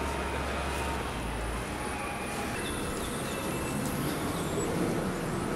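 Steady outdoor background noise with a low hum that stops about a second and a half in, and a few faint high chirps later on.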